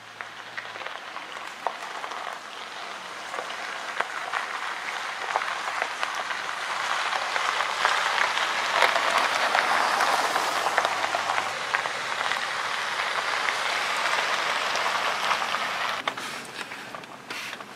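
Chevrolet pickup truck rolling along a leaf-covered gravel track, its tyres making a steady rustling crunch that grows louder as it comes close and then falls away near the end.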